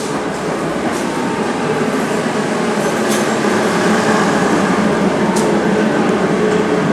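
A machine running with a steady drone that slowly grows a little louder, with a few faint clicks.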